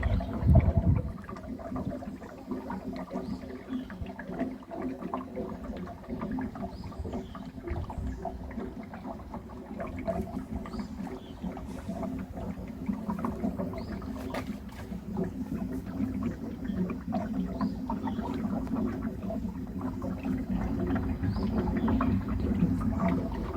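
Large dump truck's hydraulic oil tank gurgling and bubbling while the diesel engine runs steadily underneath. The bubbling is a fault symptom that goes with the dump cylinder dropping suddenly.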